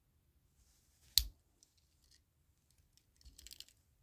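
Swiss Army knife tool snapping into place with one sharp click about a second in, then a short run of small clicks and scrapes near the end as the folding tools are handled.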